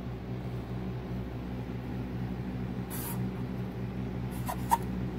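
Steady electric hum of a shop fan running, with a couple of short squeaks of a Sharpie marker on a wooden board about four and a half seconds in.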